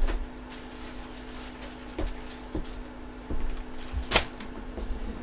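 Handling sounds as items are picked up and moved: scattered knocks and rustling, the sharpest knock a little after four seconds, over a steady low hum.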